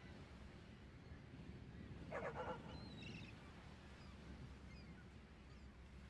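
Faint seaside ambience with a low steady rumble. About two seconds in comes a short run of about four bird calls, with a few faint high chirps after it.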